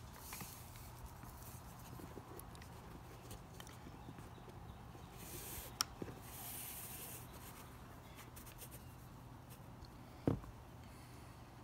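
Faint rustling and scraping of a bootlace being threaded and pulled through the metal eyelets of a Keen Targhee III hiking boot. There is a sharp click about six seconds in and a single knock near the end.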